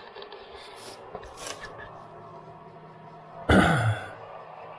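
A person lets out one short sigh, breathy with a falling voice, about three and a half seconds in, over a faint steady hum.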